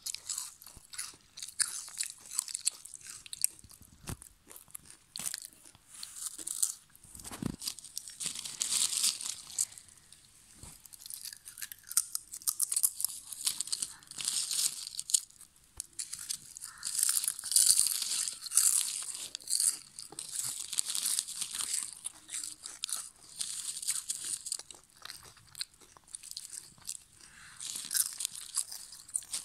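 Lay's potato chips crunching and crackling in bursts, high-pitched and crisp, with short quieter gaps between bursts.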